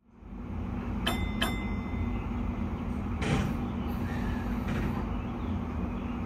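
Steady low hum inside the driver's cab of a stationary Keio 5000 series electric train, with two sharp ringing clicks about a second in and a short hiss around three seconds in.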